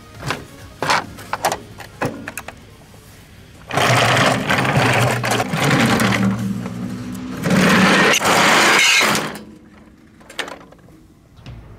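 A few light plastic clicks, then the wheels of a plastic Tomica toy car-carrier truck rolling down a stainless steel slide: a loud, steady rumble lasting several seconds, briefly easing partway through.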